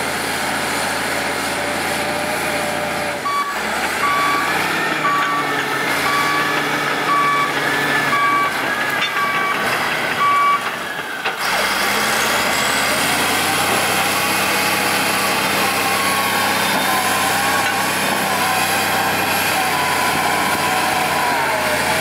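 Crawler bulldozer's diesel engine running steadily under load, with a backup alarm beeping about once a second through the middle stretch. After about twelve seconds the engine pitch climbs and holds, then drops back near the end.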